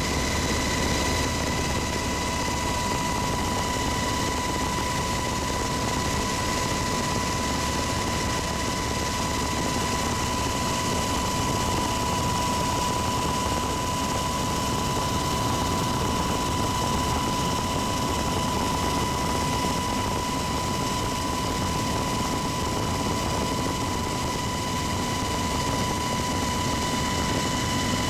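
Cabin noise of a UH-60 Black Hawk helicopter in level flight: a steady rushing drone with an even high-pitched whine over it.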